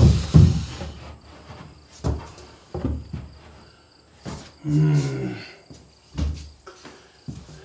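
Wooden vanity cabinet being pushed and knocked into place against a wall: two loud thumps at the start, then scattered lighter knocks. A short voiced hum or grunt about five seconds in.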